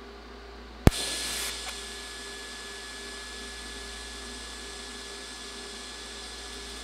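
TIG welding arc struck about a second in with a sharp crack and a brief louder crackle, then burning steadily as a hiss with a thin high whine while welding coins to a mild steel plate. A low electrical hum sits under it before the strike.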